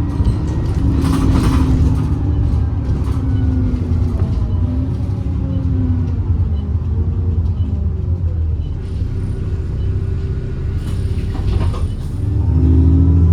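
Diesel engine of an ADL Enviro 400 double-decker bus running, its note wandering up and down and growing louder near the end, with faint whistles sliding in pitch above it. Two short bursts of hiss come about a second in and near the end.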